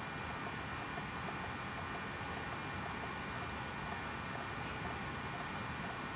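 Faint, fairly regular light ticking, several ticks a second, over a steady low hiss.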